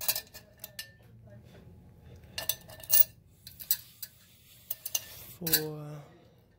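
Quarters clinking against each other and the metal coin tray of a coin-operated vending machine as they are picked out and stacked by hand: scattered sharp clinks, with a short low hum near the end.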